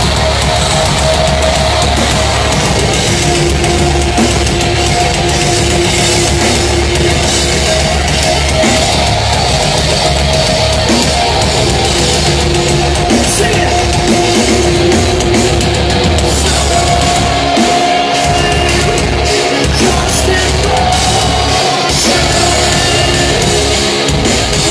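Post-hardcore band playing live at full volume: heavy distorted guitars, bass and drums, with brief breaks in the low end twice about two-thirds of the way through.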